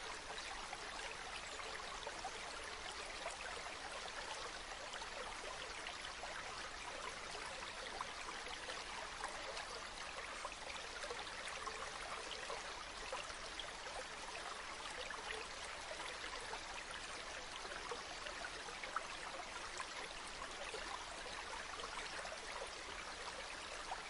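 A stream flowing steadily, with a fine, busy trickling and bubbling of water.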